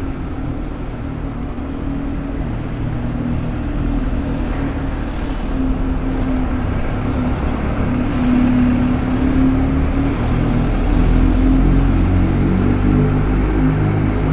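Steady motor-vehicle engine and road-traffic noise, with low engine hum that shifts in pitch, growing louder about halfway through.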